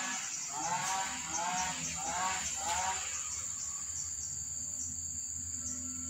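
A cat mewing again and again, short rising-and-falling mews about two a second, which stop about three seconds in; soft background music with held notes goes on underneath and alone afterwards.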